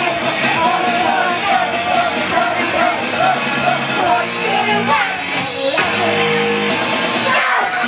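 Idol group singing a rock-style pop song live over loud band music, with a wavering sung melody above sustained bass notes.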